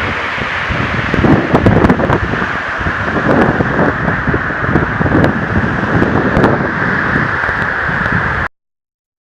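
Wind buffeting the microphone, irregular low rumbles over a steady loud rushing noise, which cuts off suddenly about eight and a half seconds in.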